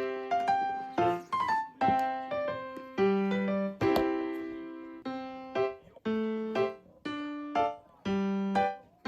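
Background music: a light keyboard melody of piano-like notes, struck about once or twice a second in a steady rhythm.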